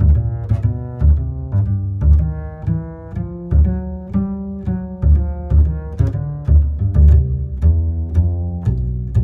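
Instrumental background music with a bass line and a steady beat of about two strikes a second.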